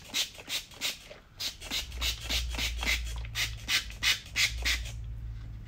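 Hand-trigger spray bottle squirting water onto a plastic headlight lens to wet it for wet sanding: a quick run of short hissing squirts, about two or three a second, stopping about five seconds in.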